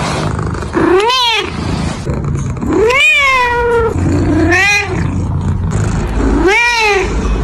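A grey-and-white cat meowing four times, a couple of seconds apart. Each meow rises and then falls in pitch, and the second one is drawn out longest.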